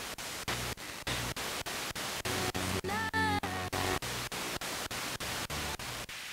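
Spirit box radio scanner sweeping through stations: static hiss chopped into short pieces about five times a second. About three seconds in, a brief pitched snatch of broadcast sound comes through the sweep.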